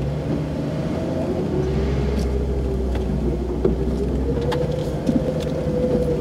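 Jeep running slowly over a bumpy dirt trail, heard from inside the cab: a steady low engine drone with a tone that rises a little in pitch about halfway through as it speeds up, and a few light knocks and rattles.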